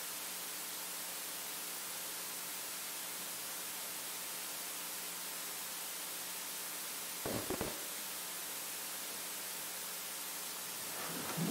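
Steady hiss from the sound system's microphone feed with a faint low hum, broken by one short knock about seven seconds in; soft rustling starts to rise near the end.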